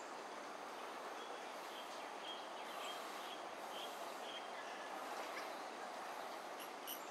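Steady outdoor background noise, with faint short high chirps from about a second in and a few sharp high ticks near the end.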